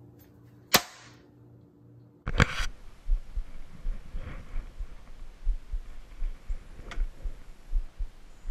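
Handling noise at a plastic cutting board: a single sharp click about a second in, then a louder clatter, followed by irregular soft low thumps as a whole fish is handled on the board.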